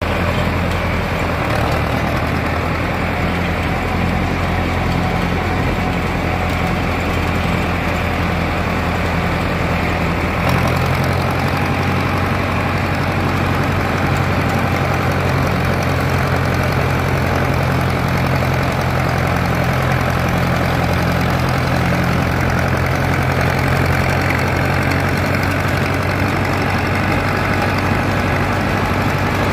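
Ford tractor with a Select-O-Speed transmission, its engine running steadily at road speed, heard from the driver's seat. The engine note shifts slightly about ten seconds in.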